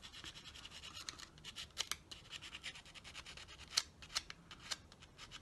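800-grade glass paper rubbed lightly over the copper commutator of a small Dinky toy electric motor's armature, cleaning the worn, dirty copper back to bright. It makes a soft, quick run of fine scratching strokes, with a few sharper clicks.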